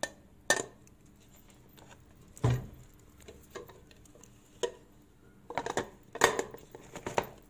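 Knocks and clatter of a bundt pan against a serving plate as a baked meatloaf is flipped out of the pan onto the plate: a dull thump about two and a half seconds in, a few light taps, then a run of knocks near the end.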